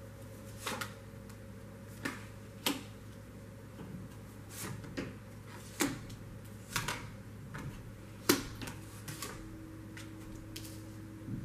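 Tarot cards being drawn and laid down one at a time on a table: an uneven series of sharp taps and card slaps, over a low steady hum.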